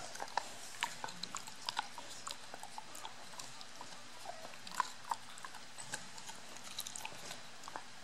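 Dog gnawing and chewing a rawhide treat: a string of irregular short crunches and clicks from teeth working the hide.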